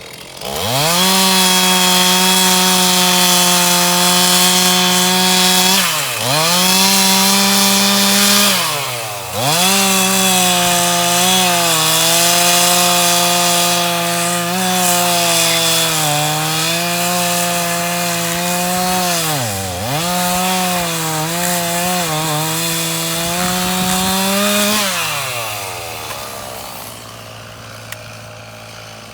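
Stihl two-stroke chainsaw revved to full throttle and cutting through wattle wood, its engine pitch dipping briefly three times under load. Near the end it drops back to idle.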